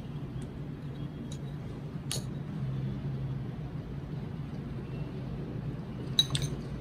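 A metal spoon clinking lightly against a small ceramic plate a few times while cutting sticky rice cake, the clearest clink about two seconds in and a quick cluster near the end, over a steady low hum.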